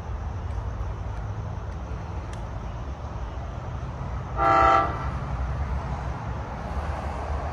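One short toot of a train horn, under half a second long, from an approaching train, over a steady low rumble.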